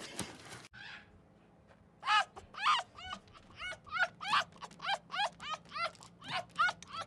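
Foxes calling: a rapid series of short, high yips, about three a second, each rising and falling in pitch, starting about two seconds in after a short quiet.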